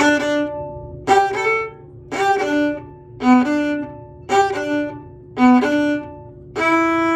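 A viola bowed slowly in a stop-start 'hiccup' practice rhythm: short groups of notes about once a second, each broken off by a brief rest, with a longer held note near the end.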